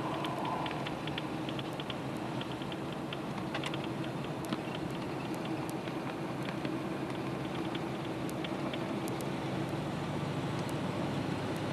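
Steady engine and road noise heard inside a moving vehicle's cabin, with an irregular patter of small ticks from precipitation striking the windshield and roof.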